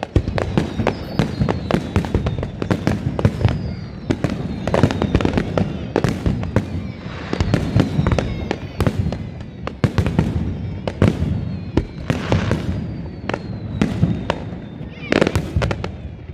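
Aerial fireworks display: a rapid, irregular string of sharp bangs and booms, with a few faint high whistles falling in pitch between them.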